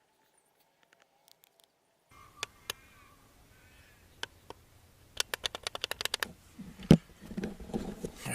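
Hand-tool work on an engine while an ignition coil is being swapped: scattered sharp clicks, then a quick run of about ten clicks a second lasting about a second, then a single loud knock and some handling noise.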